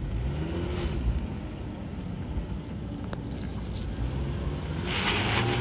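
Range Rover Velar SUV pulling away and driving slowly across a parking lot, its engine running with a low rumble and a faint rising tone in the first second. A short hiss comes about five seconds in.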